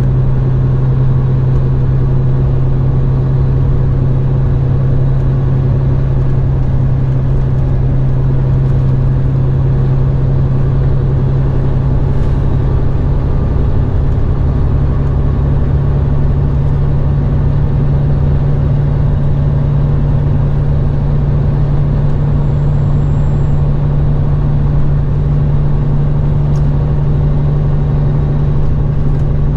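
Road-train prime mover's diesel engine running steadily on the move, a deep even drone with road noise, heard from inside the cab. Its pitch creeps up slightly about two-thirds of the way through.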